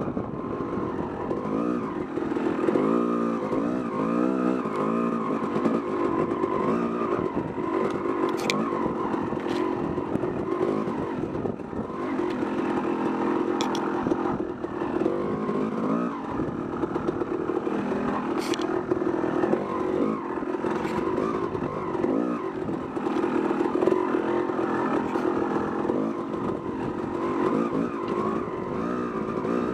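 Yamaha YZ250 two-stroke dirt bike engine heard up close from on board, revving up and down constantly as the throttle is worked along a tight trail. A few sharp ticks stand out over the engine about a third and two-thirds of the way through.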